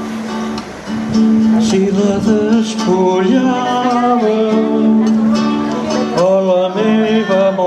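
Acoustic guitar playing, with a man singing a melodic line over it.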